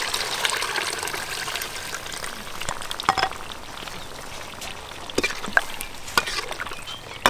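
Liquid poured into a hot wok of frying paste, sizzling and bubbling, while a metal spatula stirs and scrapes against the pan. Several sharp clicks of the spatula on the wok come in the middle of the stretch.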